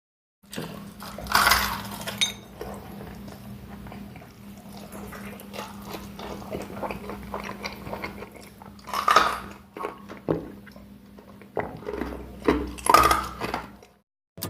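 Close-up eating sounds: crunchy bites into fried chicken, three loud ones (about a second and a half in, near nine seconds, and near the end), with chewing between them. A steady low hum runs underneath.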